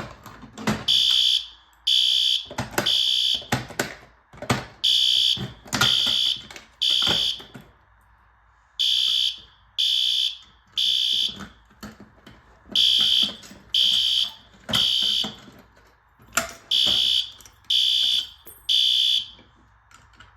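Fire alarm sounder set off from a pulled manual pull station, sounding the temporal-three evacuation pattern: three high-pitched beeps of about half a second each, then a pause of about a second and a half, repeating. Sharp clicks and knocks of handling sound between the beeps.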